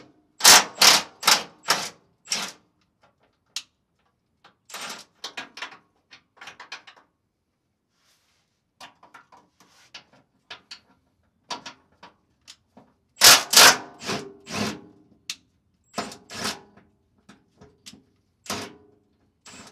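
Milwaukee M12 cordless impact tool hammering in several short bursts with pauses between, loosening the bed-mount bolts on a pickup's frame.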